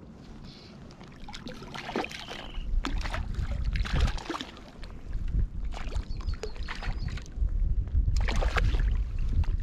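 Water splashing and sloshing against the side of an inflatable float tube in irregular bursts, with wind rumbling on the microphone from about two seconds in. A bird chirps faintly a couple of times.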